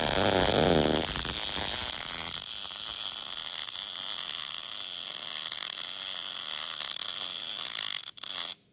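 MIG welding arc running steadily with a continuous crackling sizzle as a bead is laid with a circular weave. It breaks briefly just after 8 seconds, then stops abruptly near the end as the trigger is released.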